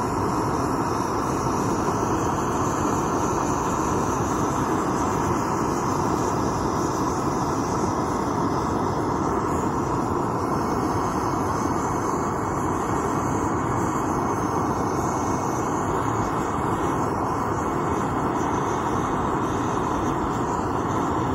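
Garden torch burning with a steady, even rush of flame, firing into the tube of a small cast-ceramic forge.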